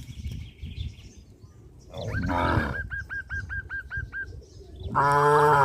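Animal calls: a bird gives a quick run of about ten chirps, roughly five a second, then a loud, steady low-pitched call starts near the end.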